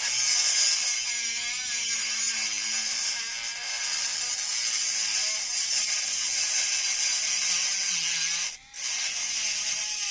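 Qila cordless rotary tool running on its third speed, spinning a large-diameter bit: a steady high whir whose motor pitch wavers as it is loaded. The sound briefly drops out near the end.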